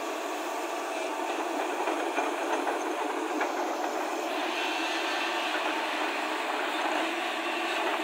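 JCB crawler excavator's diesel engine and hydraulics running under load as the boom and bucket move, a steady mechanical rumble with some clatter. About four seconds in it grows brighter and more hissing.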